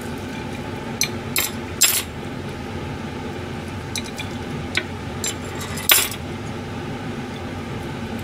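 Sharp clinks of metal skewers and chopsticks against a ceramic plate as grilled chicken breast and pork liver are slid off the skewers, about seven clinks in all, the loudest about two-thirds of the way through. A steady hum runs underneath.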